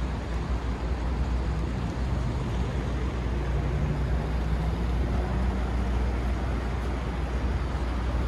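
City street traffic noise: a steady low rumble of passing vehicles, with one engine's hum rising a little in pitch around the middle.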